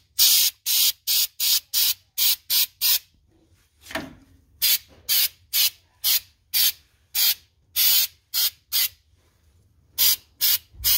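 Aerosol can of Rust-Oleum Truck Bed Pro Grade bed liner spraying in about two dozen short, quick bursts of hiss. There is a pause of about a second and a half after the first three seconds.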